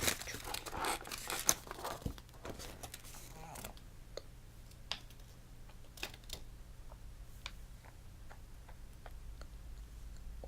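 Plastic toy packaging crinkling and tearing for the first two seconds or so, then scattered light clicks and taps as it is handled.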